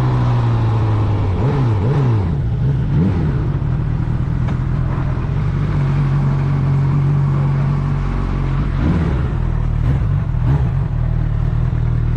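Honda CB1000R's inline-four engine running under way at a steady pitch, with a few quick dips and rises in pitch between about a second and a half and three seconds in, and again near nine seconds.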